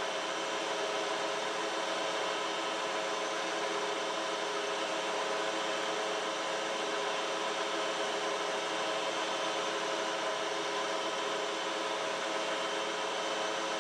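Metal lathe running steadily while a carbide insert faces off the end of a threaded bar, making a steady whine of several tones over an even machining noise.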